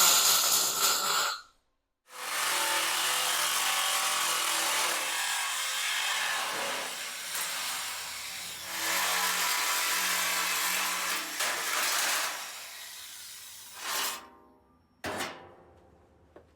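Angle grinder working 14-gauge sheet steel, heard in several cut-together pieces: a short loud burst, then about twelve seconds of grinding with the motor pitch shifting under load, then two brief bursts as it dies away near the end.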